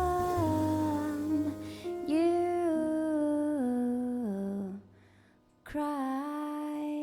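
Background music: a slow melody gliding down in steps, breaking off briefly about five seconds in, then resuming on a long held note.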